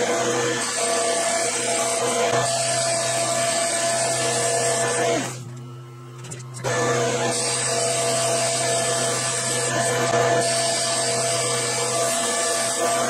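Metal lathe turning down a motorcycle front axle: a steady whine with a rushing noise as the tool cuts. It winds down about five seconds in, stays quiet for about a second and a half while the part is measured, then starts up again and goes on cutting.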